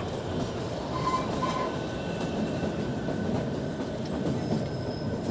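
Train running along the track: a steady rolling noise of wheels and carriage.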